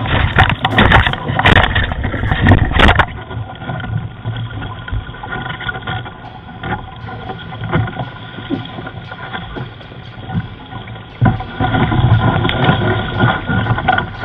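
Wind and water noise aboard a Flying Junior sailing dinghy under sail, picked up by a helmet camera's microphone. Loud knocking and rubbing for the first three seconds, then a quieter, steadier noise that grows louder again about eleven seconds in.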